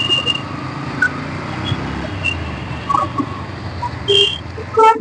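Yamaha motorcycle riding slowly in heavy traffic, heard through a wireless mic inside a closed-visor helmet: a steady low engine hum with wind and road noise. A few short horn beeps from the surrounding traffic cut through, the loudest near the end.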